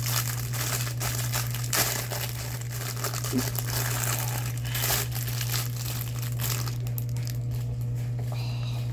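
Thin plastic packaging bags crinkling and crackling in irregular bursts as they are handled. The crinkling thins out about two-thirds of the way through.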